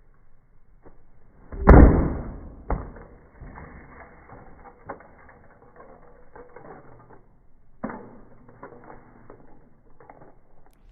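A flip phone and a solid metal cleat striking together hard, a loud impact followed by a second sharp knock, then rattling and clicking as the battered phone is handled, with another knock near the end.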